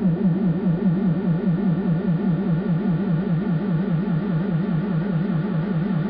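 A low electronic tone warbling steadily up and down in pitch, about five or six wobbles a second.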